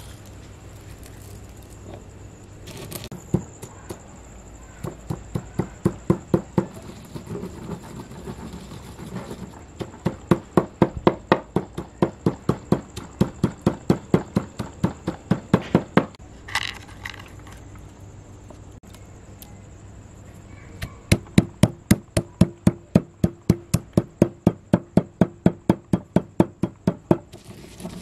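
Knife chopping on a cutting board in quick, even strokes, about four a second, in three runs of several seconds each with pauses between.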